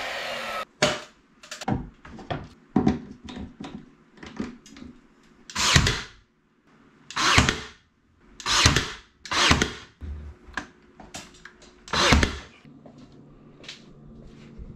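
Ryobi cordless nail gun firing nails into cabinet trim: about half a dozen loud, sharp shots at uneven intervals, with lighter knocks and clicks between them.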